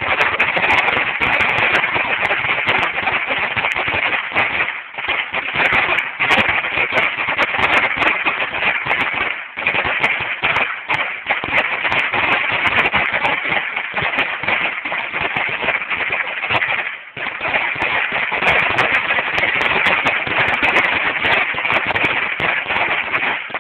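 Dominator 16,000 firecracker strip going off in a continuous rapid crackle of bangs, with brief lulls about five, nine and a half and seventeen seconds in.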